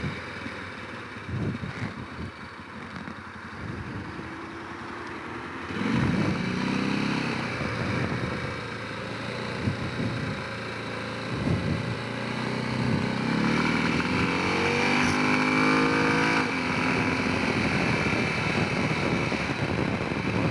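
Honda Rincon 650 quad's single-cylinder engine running under way, its pitch rising as it accelerates about six seconds in and again in a long climbing rise past the middle.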